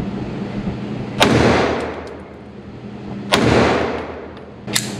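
Two pistol shots from a Walther CCP M2 firing .380 ACP, about two seconds apart, each followed by a long echo. A quieter sharp crack comes near the end.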